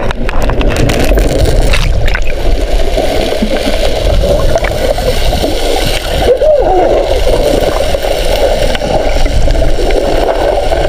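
Swift river current rushing and gurgling, loud and steady.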